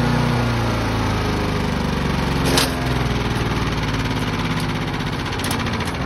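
Small gasoline engine of a chipper-shredder running steadily, with a sharp clack about two and a half seconds in.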